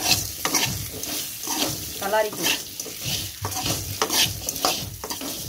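Steel spoon stirring and scraping boiled cassava cubes around a metal kadai, tossing them in hot tempering oil with a light sizzle of frying. The scrapes come irregularly, a couple a second.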